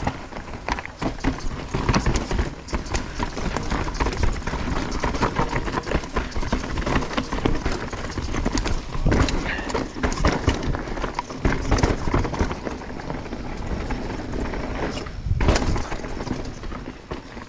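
Mountain bike riding over a rocky trail: tires crunching over rock and the bike rattling and clattering, with many irregular knocks.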